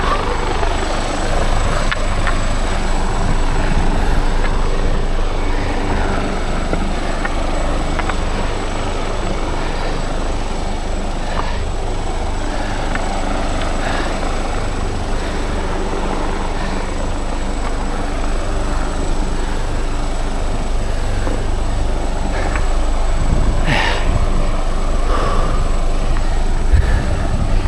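Helicopter running steadily, its engine and rotor a constant deep drone with a few steady low tones.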